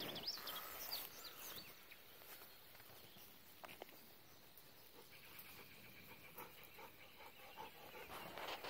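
Faint outdoor ambience: a few bird chirps in the first second, then near quiet with a faint steady high hum and a light rustle or two.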